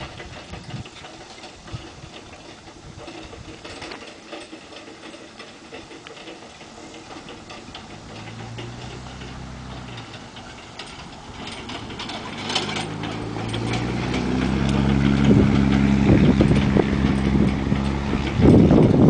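An engine running steadily, faint at first and growing louder over the second half. Over it come the hoofbeats of a horse trotting on sand while pulling a training cart.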